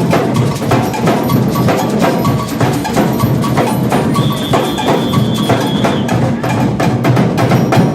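Samba bloco drum section playing live, dense rapid drum and percussion strokes, with a high steady tone held for about two seconds near the middle.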